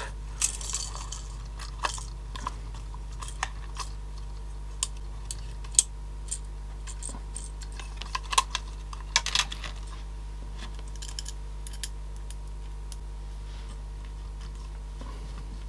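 Scattered small clicks and taps of plastic and metal parts as a CD player's laser mechanism is handled and fitted back onto its suspension mounts, thinning out after about nine seconds. A steady low hum runs underneath.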